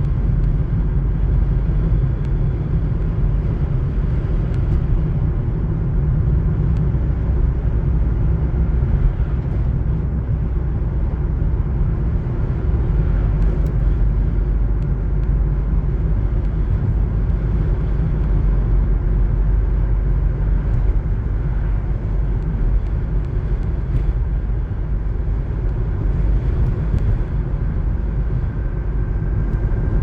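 Blizzard wind blowing hard on the microphone, a loud, steady low rumble.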